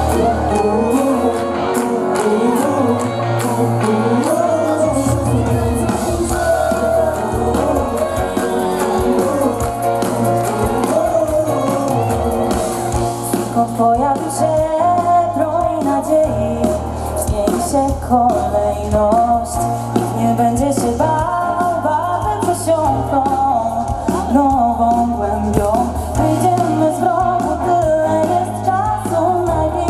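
Live pop band on stage: a woman sings lead into a microphone over guitar and a steady bass line.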